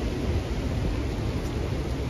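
Steady rushing of a fast, flood-swollen river, an even noise heaviest in the low rumble.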